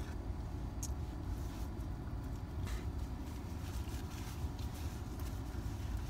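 Steady low rumble of a car's running engine, heard from inside the cabin, with a few faint light clicks from a plastic spoon and a paper coffee cup being handled.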